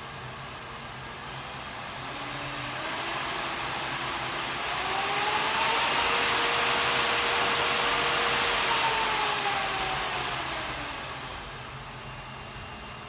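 Knee mill's 3 hp spindle motor on a Fuji variable speed drive spinning up, running at speed, then spinning back down: a whine climbs in pitch from about two seconds in, holds steady at its loudest, then falls away near the end, over a rushing hiss and a steady low hum.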